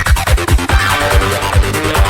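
Goa trance music: a steady four-on-the-floor kick drum, a little over two beats a second, under fast hi-hats and layered synth lines.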